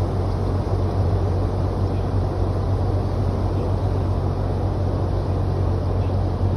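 Tour boat's engine running at a steady cruise: an even low hum under a constant rushing noise.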